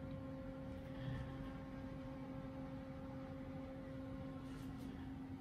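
A steady hum with a constant low tone, with a few faint clicks and rustles of tools being handled and laid on a glass table, about a second in and again near the end.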